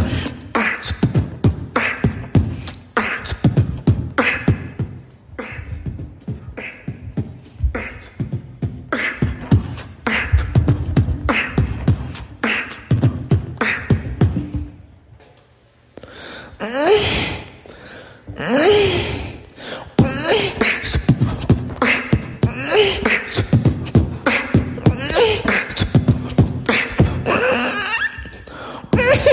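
Beatboxing: a steady rhythmic beat of mouth-made kick and snare sounds. It drops away briefly about halfway through, then comes back with gliding pitched vocal sounds over the beat.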